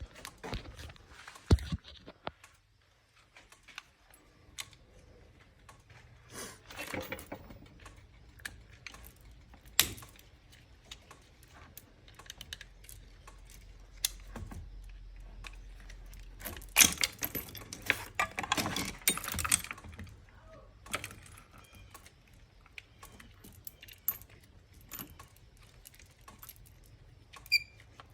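Scattered metallic clinks, rattles and knocks from a steel drain-cleaner flexshaft cable, its chain links and metal tools being handled, busiest in a few short clusters.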